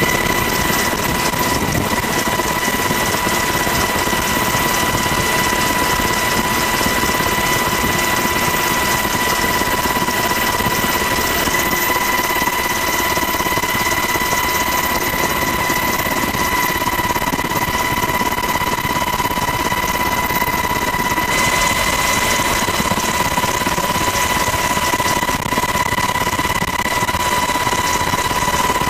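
Coast Guard helicopter in flight: a loud, steady engine and rotor noise with a high, even whine. The upper hiss brightens suddenly about two-thirds of the way through.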